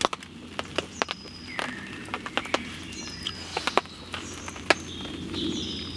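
A small utensil clicking and tapping against a metal frying pan as pieces of fried mushroom are picked out, in scattered sharp ticks. Birds chirp briefly in the background.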